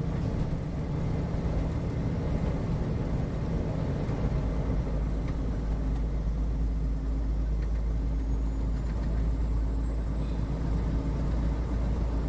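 Steady low drone of a tractor-trailer's engine and tyres on the road, heard from inside the cab; the deepest rumble grows stronger a couple of seconds in.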